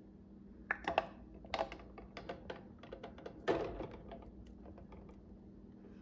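Glass mason jars with metal lids being set down into an aluminum pressure canner and nudged into place: a string of light clinks and taps, with a duller knock about three and a half seconds in.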